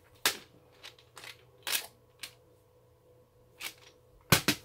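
Clear plastic storage cases of small round jars clicking and knocking against each other as they are handled and turned over, in short irregular taps with a quick cluster of louder knocks near the end.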